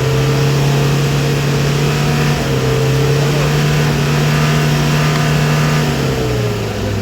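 Mitsubishi L300 van's diesel engine revved up and held at steady revs, with its pitch falling back as the throttle is eased about six seconds in.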